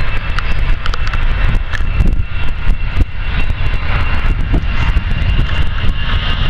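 Jet engines of an easyJet Airbus A320-family airliner running at takeoff power on its departure roll: a steady high whine over a deep roar. Heavy wind buffeting on the microphone runs underneath, with short crackles.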